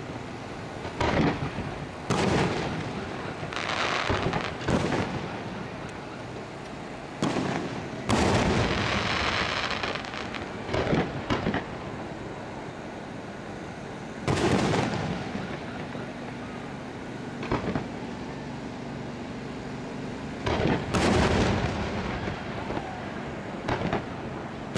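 Fireworks display: aerial shells bursting one after another, about a dozen sharp bangs with rumbling tails, and a longer stretch of crackling about eight seconds in.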